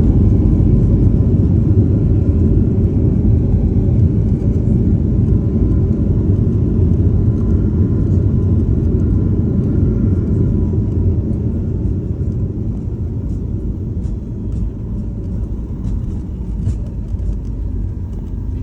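Low, steady rumble of a landing airliner that slowly eases off, with a faint steady whine above it.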